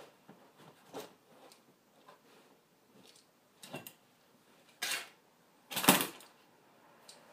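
Plastic toy cars and toys clattering and cracking under high-heeled boots: scattered sharp knocks, then a longer clatter about five seconds in and the loudest cluster of knocks about a second later.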